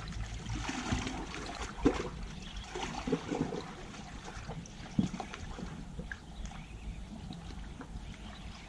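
Small waves lapping and sloshing against a rocky shore, with two sharp knocks, one about two seconds in and another about five seconds in.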